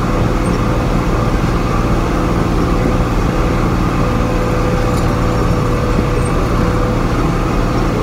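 Diesel engine of a tractor or loader running steadily under way, heard from inside the cab as a constant loud drone.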